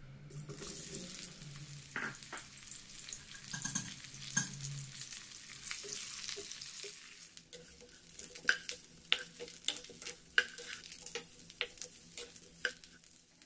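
Eggplant wedges frying in hot oil in a nonstick wok: a strong sizzle as they go in, easing after about seven seconds. From then on a plastic spatula knocks and scrapes against the pan again and again as the pieces are turned, over a fainter sizzle.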